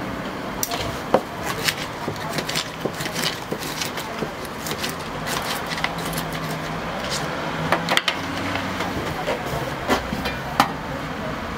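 Kitchen utensils clicking and tapping in irregular runs: metal tongs on a steel pan, and a knife chopping a sausage into pieces on a paper tray, with a few sharper knocks against the stainless steel pans.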